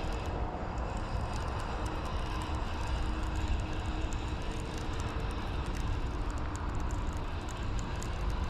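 Steady low outdoor rumble with a faint steady hum and scattered light clicks.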